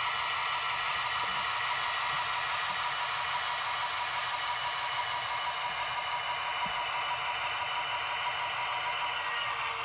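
Tsunami 2 sound decoder in an HO-scale Athearn Genesis SD70M model playing a diesel prime mover running steadily in notch one, heard through the model's small speaker.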